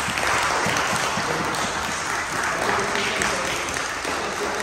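A group of children clapping their hands in steady, continuous applause.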